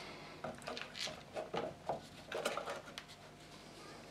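Faint scattered knocks, taps and rustles of a motorcycle battery's plastic case and its cable leads being handled as the battery is offered up to the battery box.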